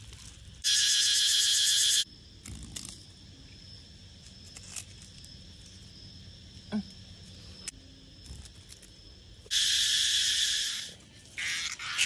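Cicada buzzing in two loud bursts, each lasting a second or so, one about a second in and one near the end, with a faint steady high drone in between.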